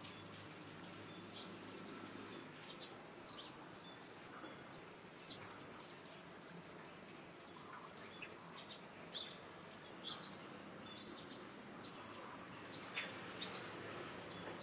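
Faint outdoor ambience: scattered short, high bird chirps over a low steady hum, with a few small clicks.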